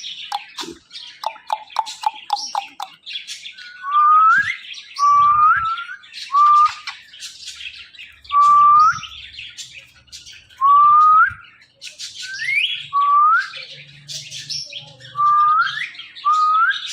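Ringneck parrot calling: a quick run of short notes, then a series of about nine loud whistled notes, each sliding upward, with high chirping going on throughout.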